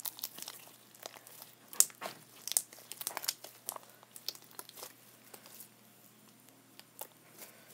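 Homemade slime being mixed and kneaded with lotion, making irregular sticky clicks, pops and crackles that thin out after about six seconds.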